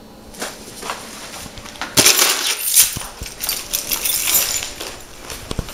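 Several bunches of keys jingling and clinking as they are scooped up off a countertop, with the loudest jangling from about two seconds in.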